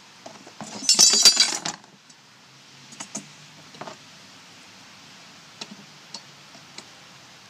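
Small metal hardware being handled: a jangling, clinking rattle for about a second near the start, then a few light clicks and taps.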